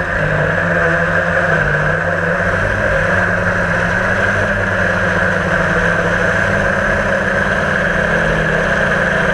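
A drone's electric motors and propellers running steadily, heard close up from its onboard camera: a constant buzzing hum whose pitch drifts slightly as the motors adjust speed.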